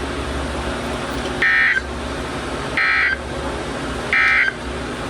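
Three short bursts of EAS (SAME) digital data tones, each about a third of a second and about 1.3 s apart: the end-of-message code that closes a broadcast alert. Between them runs a steady hiss with a low hum.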